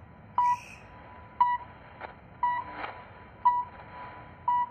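Top-of-the-hour time-signal pips from Radio New Zealand International on 9700 kHz shortwave, heard through a Tecsun PL-330 receiver: five short high beeps one second apart, over steady shortwave hiss with a faint whistle and a couple of static crackles. The pips mark the hour just before the news.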